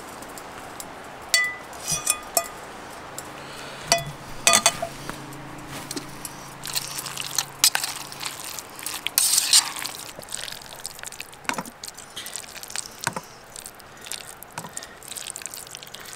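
Metal utensils clinking and scraping against metal camp cookware, with scattered sharp clinks, a few of them ringing briefly.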